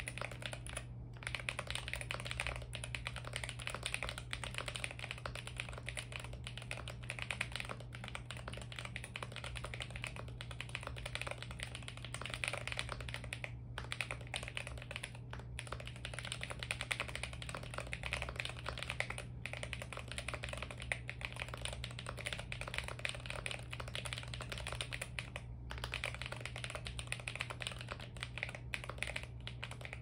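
Fast, continuous typing on an Akko Alice Pro mechanical keyboard with factory-lubed Gateron Baby Kangaroo tactile switches, a polycarbonate plate and PBT cherry-profile keycaps, a sound the uploader calls thocky and marbly. The keystrokes run on without let-up apart from a few split-second breaks.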